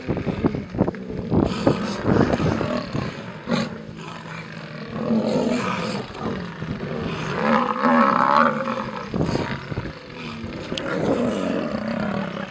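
Lions growling, a run of drawn-out growls one after another, the loudest about two-thirds of the way through.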